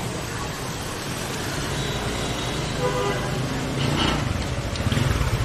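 Street traffic of motor scooters passing, with a short horn toot about three seconds in and a louder rumble of a passing engine near the end.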